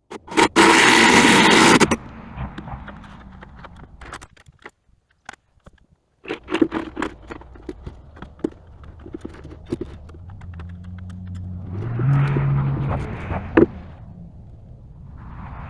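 A loud scraping rush in the first two seconds, then scattered metallic knocks and clatter. An engine revs up about eleven seconds in and settles again, with a sharp knock just after.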